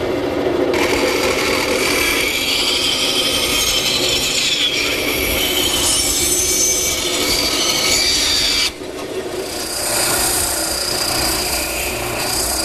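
Bandsaw cutting the curved outline of a corbel out of 1-inch-thick white oak, the blade running steadily through the wood. About nine seconds in the sound drops suddenly and gives way to a spindle sander smoothing the curved oak edge.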